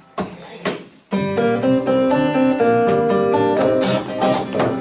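A couple of soft taps, then about a second in an acoustic guitar starts strumming chords that ring out in a steady rhythm, with the strokes growing busier near the end.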